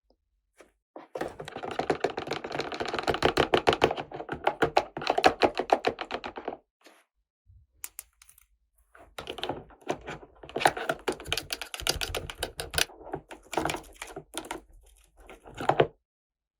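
Small hard plastic toy pieces being handled and rattled: a dense run of rapid clicks for about five seconds, a short pause, then more clicks and light knocks.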